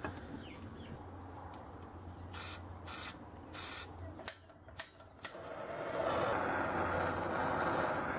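Three short hisses and a few sharp clicks, then from about six seconds in a gas torch burning with a steady rushing noise, heating a seized brake caliper to free its stuck piston.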